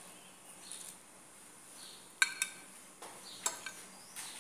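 Metal cutlery clinking against a ceramic plate as a vegetable tempura fritter is served onto it: two sharp, ringing clinks a little past two seconds in and another about a second later, with lighter taps before them.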